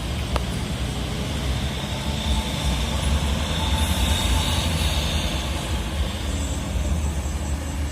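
Road traffic with a steady low engine rumble and even tyre and road noise. No single event stands out.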